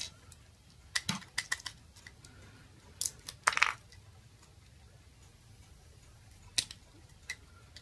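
Hard plastic parts of a clamp meter's jaw assembly clicking and clacking as they are turned and pried at in the fingers: several short clicks in small groups about a second in and about three seconds in, then single clicks near the end.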